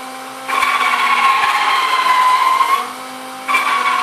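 Cordless drill spinning a mini high-speed-steel circular saw blade as it cuts a white plastic strip, a steady high whine with a hissy cutting edge. It grows louder about half a second in, eases briefly near three seconds, and picks up again.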